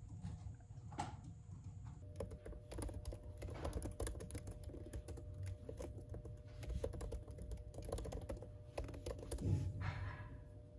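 Typing on a laptop keyboard: a quick, dense run of soft key clicks that starts about two seconds in, with a louder knock near the end.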